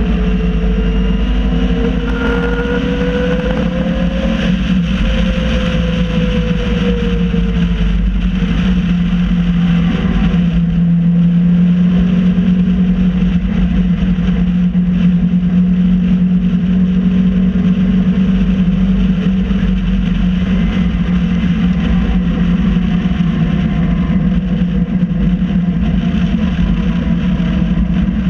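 MG Midget race car's four-cylinder engine heard from the open cockpit, running at moderate revs while following a safety car. The revs rise and ease back a few seconds in, then hold steady, with wind and wet-tyre noise underneath.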